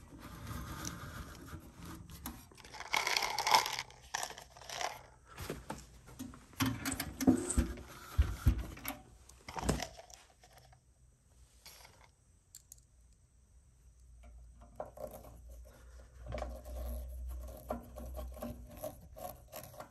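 Metal parts of a tube amplifier kit being handled and fitted: irregular scrapes, clinks and knocks as the transformer cover is put onto the chassis. There is a lull in the middle of the handling.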